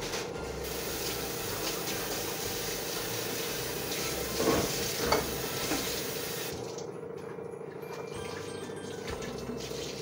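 Water running steadily from a kitchen tap, with a couple of louder splashes or knocks at around four and a half and five seconds in, then cutting off about six and a half seconds in. Soft background music plays underneath.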